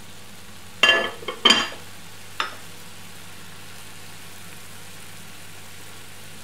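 Rice and vermicelli simmering with a steady soft sizzle in a covered-then-opened frying pan, the water not yet fully absorbed. A glass pan lid clinks sharply twice about a second in, then gives a lighter tap.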